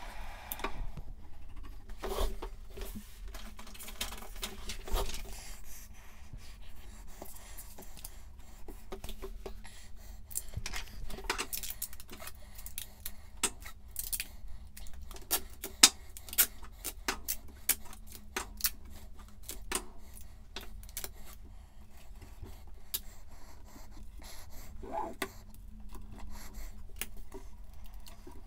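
Hands changing the sheet of paper on a pen-plotter bed: scattered clicks, taps and scrapes of paper, tape and small tools being handled. Near the end the new sheet is pressed flat and taped down.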